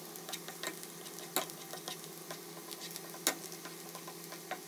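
Chopped onions frying in hot oil in a non-stick kadhai, crackling and popping irregularly with a few louder pops, while a spoon stirs them near the end.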